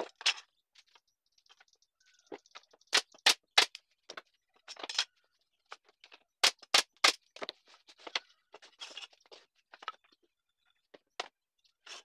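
Pneumatic nail gun firing nails into a wooden frame joint: three sharp shots in quick succession about three seconds in, then three more about six and a half seconds in. Smaller knocks and clinks of wood strips and a steel square being handled on the bench come in between.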